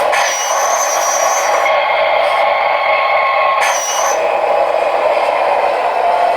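Radio-controlled model truck running: a steady mechanical whir with a faint whine in the middle.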